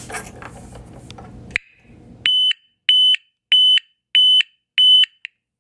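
DNI U151 24 V piezoelectric reverse-warning siren sounding intermittently: five short, loud, steady high-pitched beeps, about one and a half a second, starting about two seconds in, with a sixth cut off short. Before the beeps there is faint low noise and a click.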